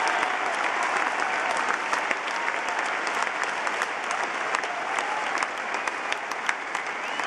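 Large stadium crowd applauding, a dense wash of clapping that eases off slightly toward the end.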